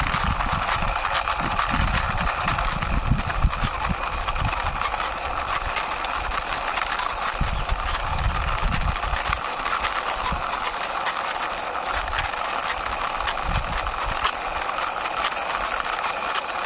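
A small toy fire truck's plastic wheels rolling and rattling over the ground as it is pushed along by hand, with irregular clicks and low knocks over a steady hiss.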